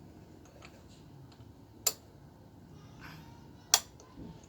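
Small metal ticks and clinks from fitting the brake pad retaining pin through a motorcycle brake caliper and pads. There are two sharp clicks about two seconds apart, and the second, near the end, is the loudest.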